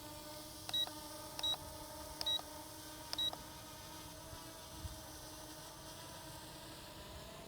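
Four short beeps with clicks, roughly a second apart, as photos are snapped from the ZLL SG107S drone's remote controller, over the steady hum of the drone's brushless motors hovering.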